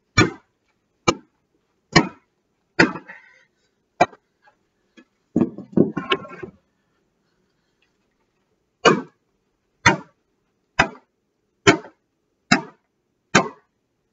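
Hockey stick repeatedly whacking a small cardboard box: sharp cracks about once a second, a short jumbled clatter about six seconds in, then a second run of six evenly spaced cracks.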